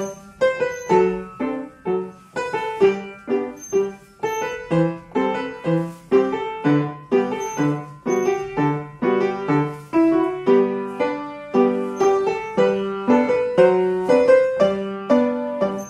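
Piano playing rhythmic ballet-class accompaniment, with accented chords about twice a second, for the grand battement jeté exercise at the barre.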